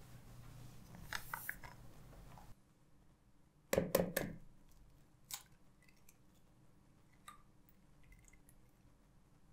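A raw egg cracked against a bowl: a quick cluster of sharp knocks about four seconds in, then a few faint clicks as the shell is pulled apart.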